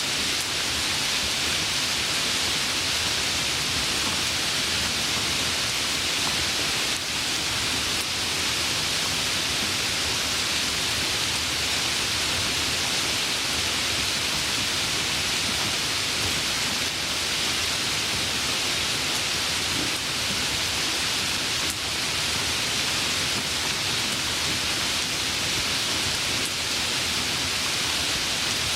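Steady, even rain falling, a continuous hiss of many drops with no single drops standing out.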